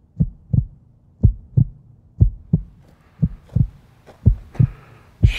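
Heartbeat sound effect: deep, short thumps in lub-dub pairs, about one pair a second, with a faint hiss building up over the second half.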